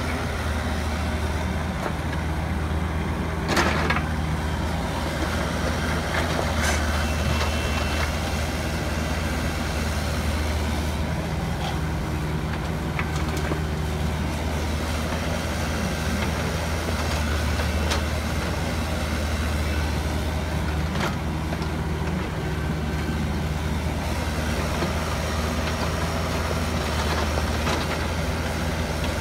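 Kubota KX121-3 mini excavator's diesel engine running steadily under hydraulic load as it digs and swings, with a few sharp knocks of dirt and rock dropping into the steel dump truck bed, the loudest about three and a half seconds in.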